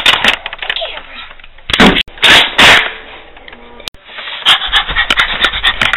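Plastic clicks and clatter of a Nerf toy blaster being handled and loaded, broken by a few loud noisy bursts.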